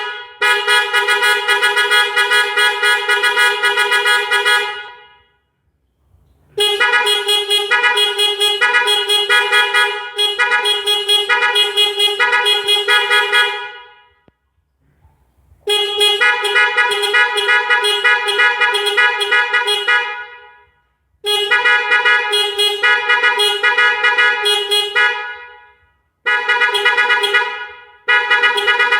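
Melodic car horn module driving the horns through a series of short tunes. There are about six runs of rapidly pulsing horn notes that step up and down in pitch, each a few seconds long with short pauses between.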